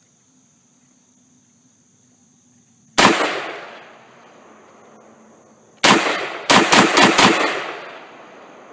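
Tavor bullpup rifle firing at an outdoor range: a single shot about three seconds in, another near six seconds, then a quick string of about five shots, each report echoing off and fading over about a second.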